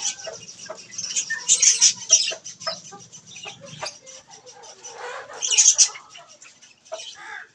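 A flock of budgerigars chattering: a dense run of quick high chirps and warbles, with louder bursts of chirping about two seconds in and again near the sixth second.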